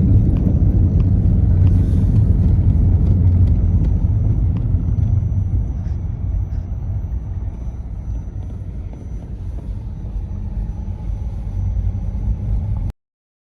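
Car in motion, a steady low road and engine rumble that eases a little partway through and cuts off suddenly near the end.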